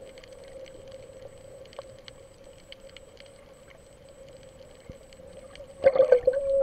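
Underwater sound picked up by a camera over a coral reef: a steady hum with scattered faint clicks, then a burst of louder bubbling and knocking near the end.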